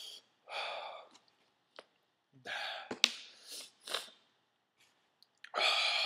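A man breathing hard through his mouth against the burn of superhot chile peppers: several breathy exhales and gasps, a sharp mouth click about three seconds in, and a longer exhale near the end.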